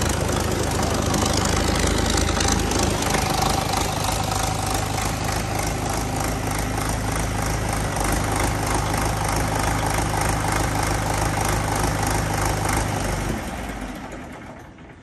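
A 1973 Belarus tractor's diesel engine idling steadily. The sound dies away about 13 seconds in.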